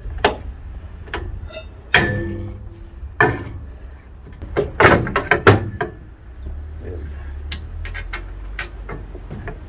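Metal knocks and clinks of hand tools working a bolt on a van's underside, irregular, with a louder knock about two seconds in and a cluster of knocks around five seconds. A low steady rumble runs underneath.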